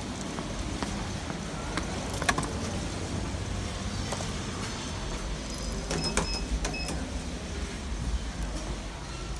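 Footsteps of open sandals on stone floor tiles, walking into an elevator car, over a steady low hum. A few short high beeps come about six seconds in.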